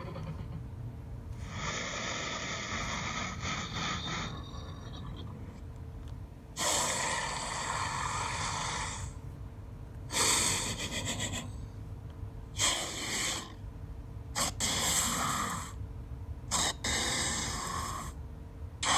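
Evil snake sound effect: a series of about six breathy hisses, some long and some short, separated by brief pauses.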